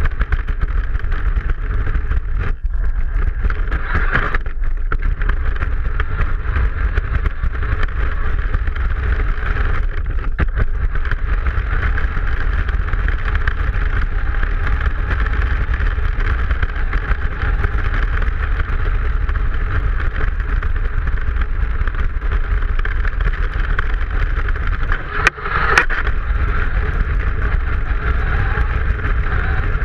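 Radio-controlled Maisto toy car running, its electric motor whining steadily over a heavy rumble of the wheels and chassis rattling on the ground. It is heard up close from a camera mounted on the car.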